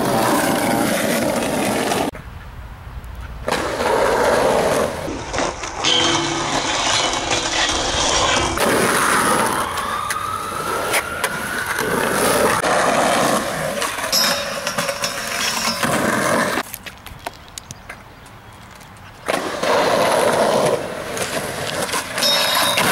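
Skateboard wheels rolling on concrete, with knocks and clacks of the board, over several short takes that cut in and out abruptly.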